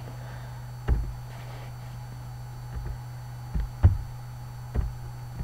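A steady low hum with four short, dull thumps, the loudest about four seconds in.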